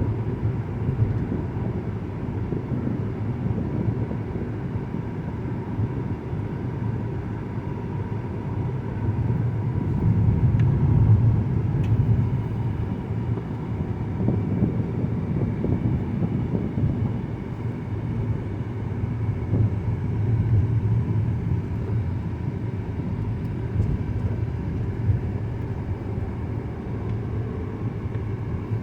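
Cabin noise of a 2009 Mazda 5 being driven: a steady low rumble of engine and road that swells and eases a couple of times as the car changes speed. The automatic transmission has just been downshifting normally.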